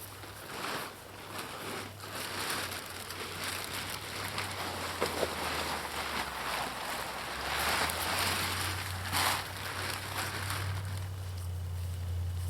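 Rustling and scraping in uneven surges as ice is cleared out by hand, over a steady low hum that grows stronger about halfway through.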